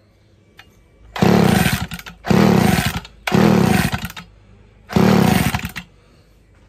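Vintage Homelite 360 two-stroke chainsaw pulled over four times on its starter cord, each pull a loud burst of the engine turning over that dies away without the saw starting. The owner bets it is flooded.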